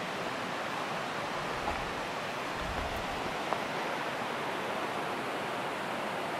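Steady rush of a shallow river running over a rocky cobble bed.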